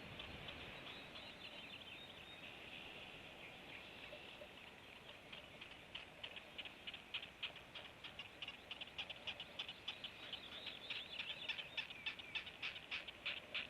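Many rapid, high-pitched peeps or squeaks from a brood of young animals, getting busier and more frequent from about halfway through.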